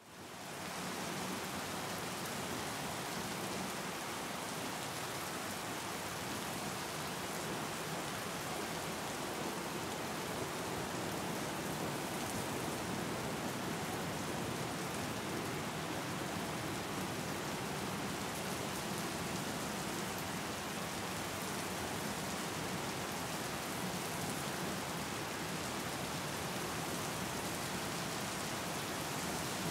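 Steady rain, a dense even hiss of falling drops, fading in from silence over the first second.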